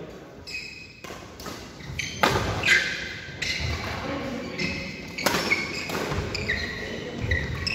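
Badminton rackets striking a shuttlecock in a fast rally, a series of sharp hits with the loudest pair about two and a half seconds in, along with short high squeaks of court shoes on the synthetic mat.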